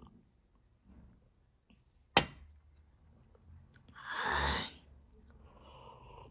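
A person at a meal: a single sharp click about two seconds in, then a long breathy sigh a couple of seconds later, with faint mouth and eating sounds between.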